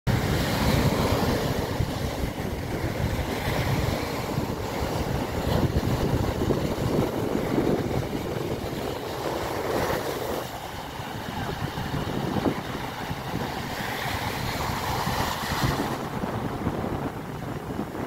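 Sea surf: small waves breaking and washing up a sandy beach, swelling and easing every few seconds. Wind buffets the microphone with a low rumble throughout.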